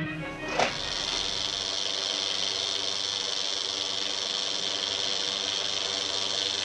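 Film viewing machine running steadily with a hiss and hum, after a sharp click about half a second in.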